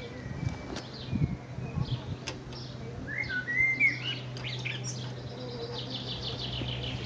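Songbirds chirping, with a sliding call about three seconds in and a fast high trill near the end, over a steady low hum. A few dull knocks come in the first two seconds.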